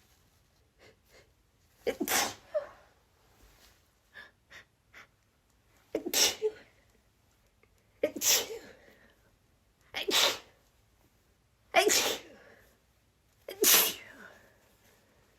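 A woman sneezing over and over in a rapid fit: six sneezes about two seconds apart, with small quick breaths in between.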